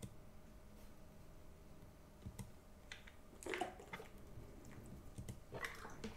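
Mostly quiet room, with a few faint clicks and soft handling noises as a plastic water bottle is raised and drunk from, most of them a little past the middle.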